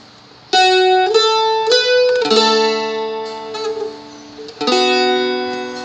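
Seagull Merlin strumstick played: a run of single plucked notes, about four in two seconds, then a strummed chord about four and a half seconds in that rings on.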